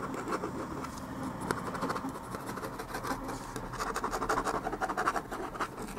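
Pen scratching over paper in quick, repeated sketching strokes, busier in the second half.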